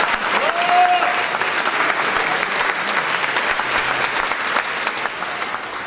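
Audience applauding: dense, steady clapping from many hands, easing off a little near the end.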